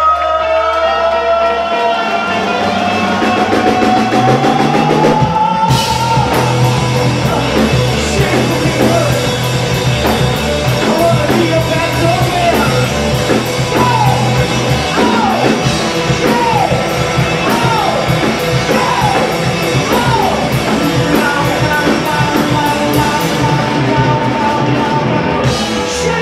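Live rock band playing with electric guitars, bass guitar, drum kit and singing. A long note rises slowly in pitch, then the drums and cymbals come in hard about six seconds in, and a run of short falling swoops follows in the middle.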